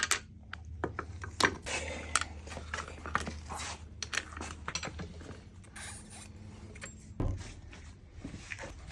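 Repeated clinks and scrapes of metal parts being handled, over a steady low hum that stops with a thump about seven seconds in.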